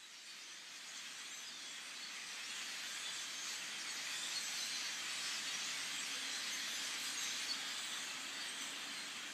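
Recorded storm ambience: a steady, high hiss that fades in from silence over the first few seconds and then holds.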